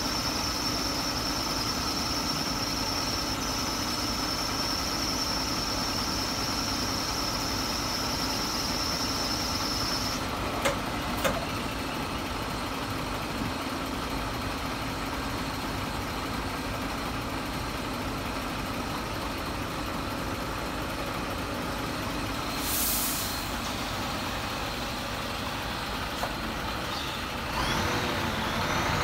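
Scania R124 hooklift truck's diesel engine running steadily while the hydraulics work the hook arm. Two sharp clunks come about eleven seconds in, and a short hiss of air around twenty-three seconds; near the end the sound grows louder and rougher.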